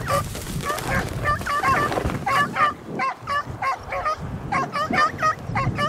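Several beagles baying on a rabbit's scent, a rapid string of short, pitched cries that overlap and carry on without a break.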